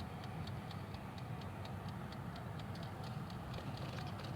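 Glass-bowl halogen countertop oven running: its timer ticks evenly, about four times a second, over a steady low hum.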